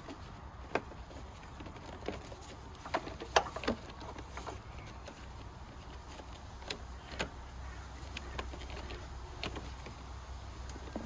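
Scattered plastic clicks and knocks as a cover is pressed and clipped back into place on top of a car battery, with the sharpest knock about three and a half seconds in.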